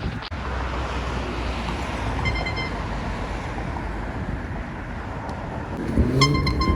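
Handheld air horn giving a short toot: faintly about two seconds in, and a louder, short blast near the end, over steady street traffic and wind on the microphone.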